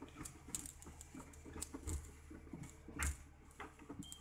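Scattered light clicks and knocks of hands handling things in the dark, several a second, with a louder knock about three seconds in and a short high beep near the end.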